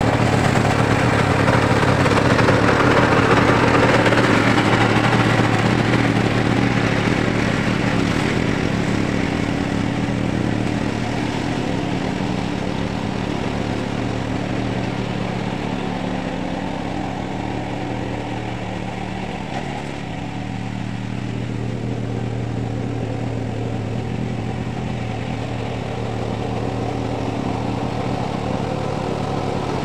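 Self-propelled flail mower's 15-horsepower 420cc OHV engine running steadily while the mower mulches brush. Loudest in the first few seconds, then a little fainter as the machine moves off.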